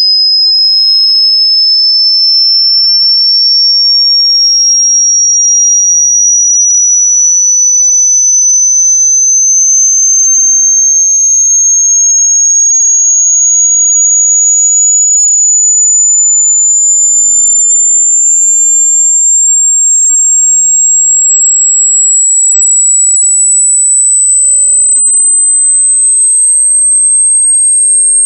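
A single pure, piercing electronic tone, loud and unchanging in level, slowly gliding higher and higher in pitch.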